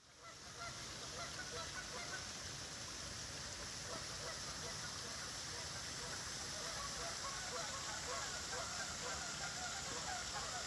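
Many birds calling in short, repeated calls, over a steady rushing hiss of moving water.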